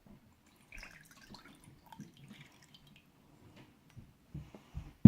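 Soy sauce pouring and dripping from a bottle into a mixing bowl, faint small splashes and drips, then a sharp low thump at the very end.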